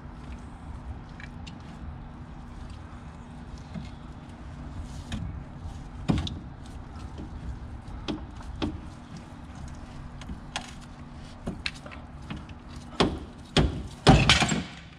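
Scattered light metal clicks and knocks of hand work with a wrench on a car's front lower control arm bolts, over a steady low hum. A louder clatter of metal near the end.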